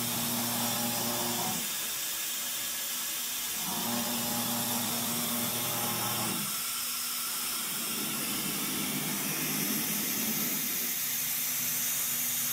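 2007 MultiCam 3000 Series CNC router's servo-driven gantry and head moving at high speed: the axis drives hum through several moves of a few seconds each, changing in pitch from move to move, over a steady hiss of air from the compressed-air-cooled spindle.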